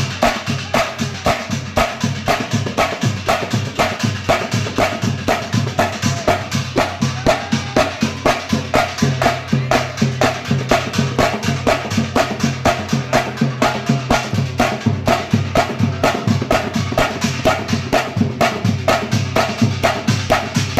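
Music with a steady, fast drum beat of about three strokes a second over a sustained bass line.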